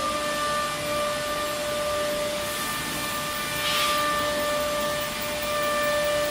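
CNC router with carousel automatic tool changer running: a steady high whine over a constant hiss, with a short burst of air hiss about four seconds in.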